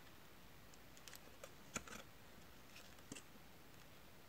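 A few faint clicks and taps from fingers handling a miniature cardboard pizza box and its lid, the sharpest a little under halfway through.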